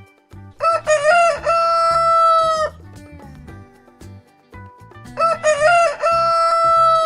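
Rooster crowing, two cock-a-doodle-doos: each a short broken opening and then a long held note of about two seconds.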